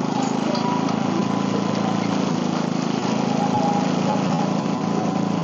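Sears SS16 garden tractor engine running steadily as the tractor moves about plowing snow.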